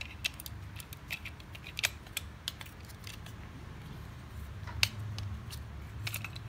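Light plastic clicks and taps as a double wall socket's plastic face cover is handled and pressed onto its mounting, with a sharper click about five seconds in.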